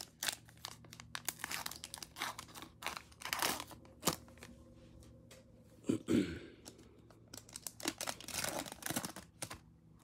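Plastic cello wrapper of a trading-card pack crinkling and tearing as it is worked open by hand, in a string of short crackles with the loudest about six seconds in.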